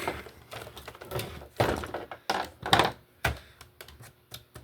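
Hard plastic knocks and clicks from Roomba robot vacuum parts being handled: about half a dozen separate sharp knocks, the loudest a little under three seconds in.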